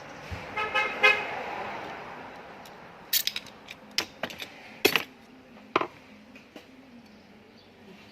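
A short pitched tone about a second in, then a scattered run of sharp metallic clicks and taps from small metal parts and tools being handled.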